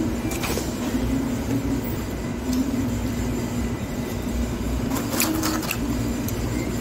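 Steady low hum and rumble of a fast-food restaurant's background, with a few short sharp crackles, the clearest about five seconds in.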